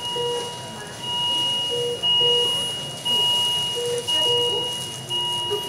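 Electronic alarm beeping from hospital patient-monitoring equipment: a high tone pulsing about once a second over a steadier lower tone, with pairs of short lower beeps every couple of seconds.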